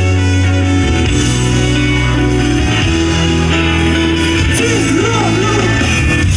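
Live rock band playing the instrumental intro of a pop-rock song, with electric guitar over sustained bass notes. A short wavering melodic line comes in about five seconds in.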